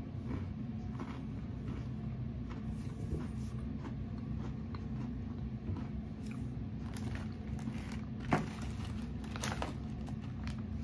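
A person chewing an Oreo sandwich cookie with the mouth closed: soft crunching clicks throughout, one louder crunch about eight seconds in, over a steady low hum.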